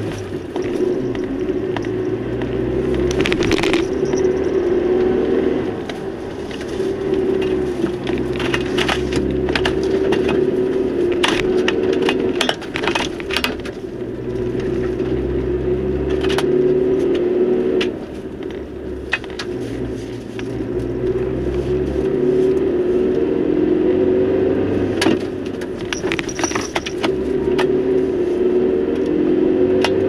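A vehicle engine running while driving, its pitch rising and falling every few seconds with the throttle, with frequent sharp clicks and rattles over it.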